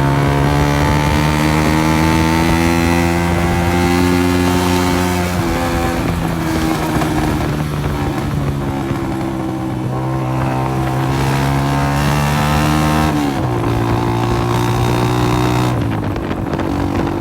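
Honda CG 125's single-cylinder four-stroke engine running through a burst silencer, effectively a straight pipe, so the exhaust is very loud. The engine note climbs slowly and drops in steps about five seconds in, again near thirteen seconds and near sixteen seconds.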